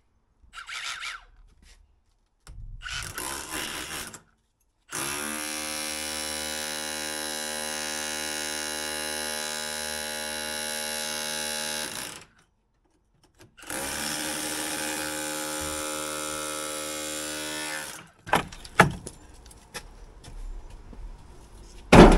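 Cordless rotary hammer drill running in two long steady bursts of about seven and four seconds, after a couple of short starts, working into an old brick pier. A few sharp knocks follow near the end.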